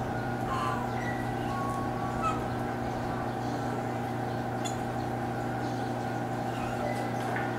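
Steady low machine-like hum, with a few short high chirps over it.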